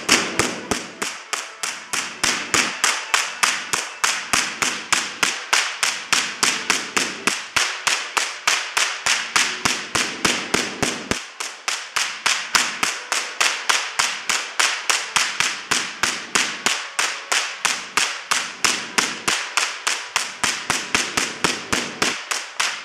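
Electric sparks cracking between the dome of the world's largest air-insulated Van de Graaff generator and a grounded rod, a steady rapid series of sharp snaps at several a second.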